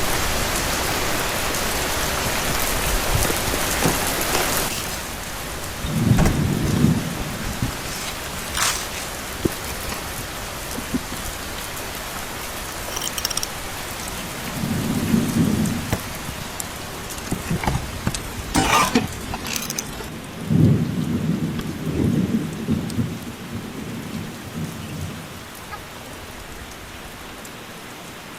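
Heavy rain falling steadily, at its densest for the first few seconds and then easing. Low rumbles of thunder roll in three times, the longest near the end, with a couple of sharp clicks between them.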